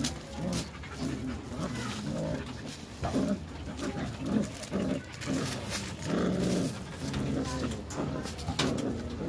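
Belgian Malinois puppies growling in short repeated bursts while tugging on a cord, with scattered scratchy clicks from their scuffling.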